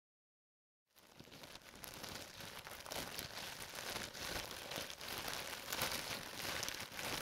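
Hand-made crackling fire sound effect for a furnace: a dense, crinkly crackle of many small pops, fading in about a second in and then running on steadily.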